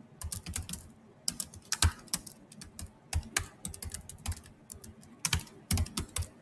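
Typing on a computer keyboard: irregular key clicks in short quick runs with brief pauses, stopping just before the end.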